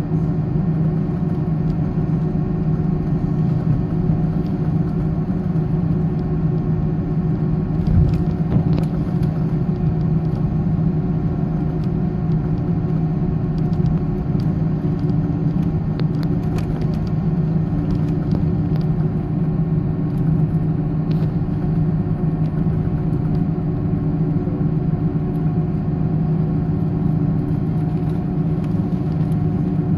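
Steady jet-engine and cabin hum with a low rumble inside an Airbus A310, holding at an even pitch and level with no spool-up. There is a single knock about eight seconds in and a few light clicks.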